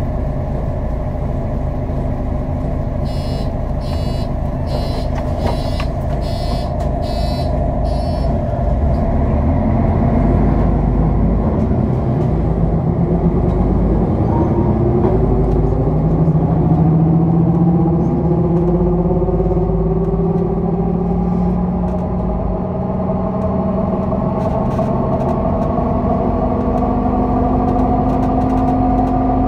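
Mercedes-Benz O 530 GL CapaCity articulated bus pulling away, with several whining tones that rise steadily in pitch as it gathers speed: the whine of a broken differential. A few seconds in, a run of short beeps, about two a second, lasts some five seconds.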